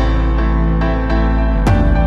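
Soft, slow background music with piano-like notes.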